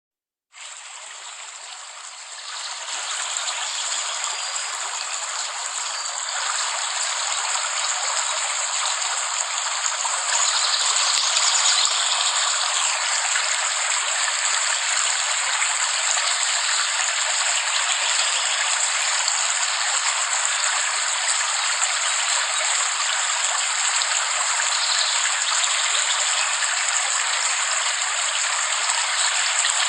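Steady rain, an even hiss that comes in just after the start, swells over the first ten seconds or so, then holds level.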